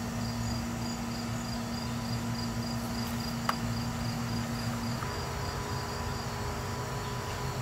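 Crickets chirping in an even pulsing rhythm, about three chirps a second, stopping about six seconds in, over a low steady hum. A single sharp click about three and a half seconds in.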